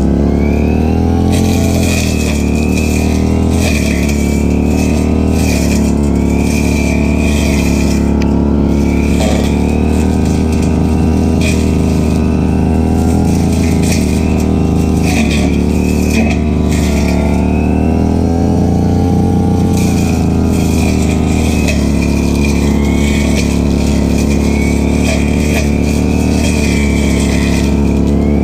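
Stihl FR 3001 backpack brush cutter's two-stroke engine running steadily at high speed, its pitch wavering slightly up and down, with a high whine from the spinning cutting head above it.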